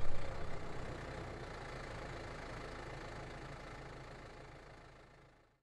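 Modern tractor's engine running steadily at low revs, fading out to silence over about five seconds.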